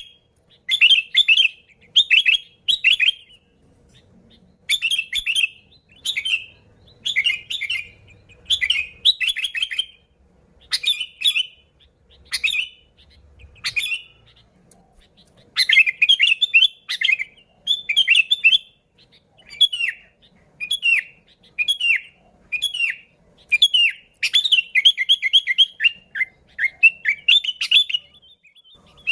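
Sooty-headed bulbul (kutilang) singing lively: short bubbly whistled phrases repeated about once a second, with a pause of a second or two early on and quicker runs of phrases later.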